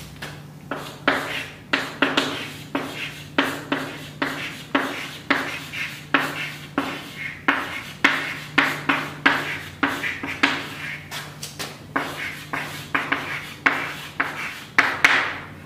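Chalk writing on a chalkboard: a steady run of short scratching strokes, about two a second, as a phrase is written out by hand.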